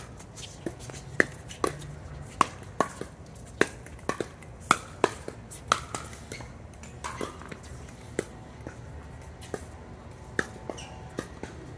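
Pickleball rally: paddles popping a hard plastic ball back and forth, about two sharp pops a second. The exchange stops about seven seconds in, and only a few scattered, fainter pops follow.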